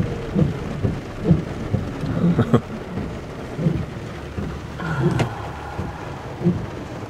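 Heavy rain pelting a pickup truck's roof and windows, heard from inside the cab: a steady patter with irregular dull thuds about once a second.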